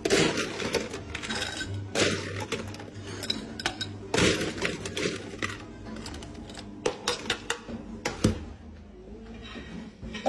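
Ice cubes scooped from an ice bin with a plastic scoop and clattering into a glass, in several bursts.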